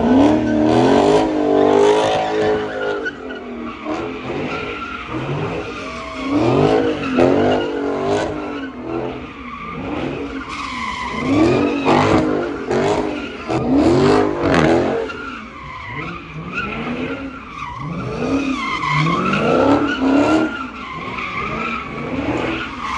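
Car engine revving up and down over and over, with tyres skidding and squealing: a car doing burnouts or donuts.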